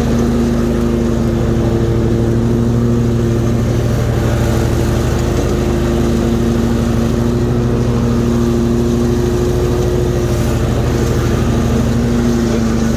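Hustler Raptor zero-turn mower's 23 hp Kawasaki V-twin engine running steadily at mowing throttle, its pitch shifting slightly now and then.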